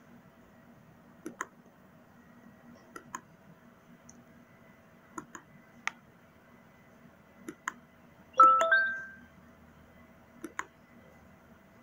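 Light, sharp clicks, mostly in pairs a second or two apart, from someone working a computer. About eight and a half seconds in, a short ringing chime, the loudest sound, fades away. A faint steady hum lies under it all.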